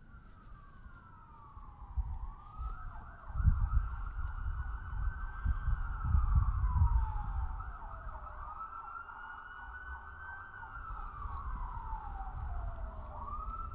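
Emergency vehicle siren wailing, its pitch rising and falling slowly several times. A low rumble swells underneath it between about three and seven seconds in.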